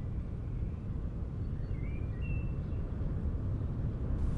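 Outdoor ambience: a steady low rumbling background, with a faint bird chirp about two seconds in.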